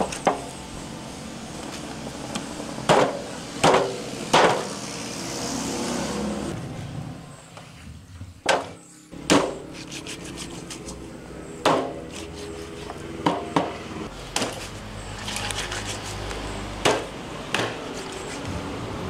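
Chopping with a knife on a wooden board: about a dozen sharp single strokes at uneven intervals, some in quick pairs.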